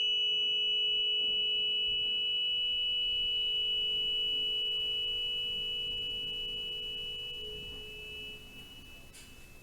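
A struck metal sound-bath instrument ringing out with a clear high tone over a softer low tone, fading slowly and dying away near the end.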